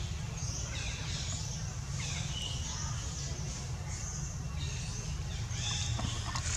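Birds chirping in short repeated calls over a steady low rumble.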